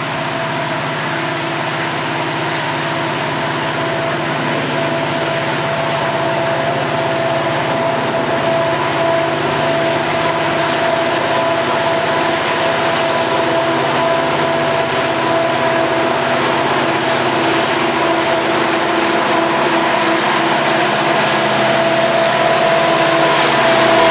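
Canadian National diesel freight locomotives approaching under power: a steady engine drone with a held whine that keeps its pitch, growing slowly louder as they near.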